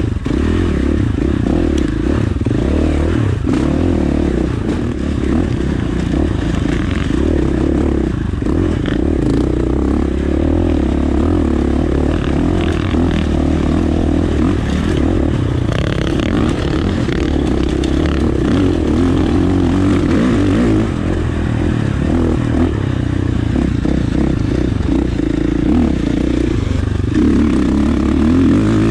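KTM 450 dirt bike's single-cylinder four-stroke engine running steadily under load on a rocky trail, with small rises and dips in throttle, and stones clattering and scraping under the tyres.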